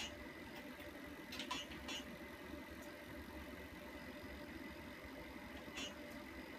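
Fetal heartbeat at 20 weeks heard through a prenatal ultrasound Doppler: a steady, low, pulsing whoosh.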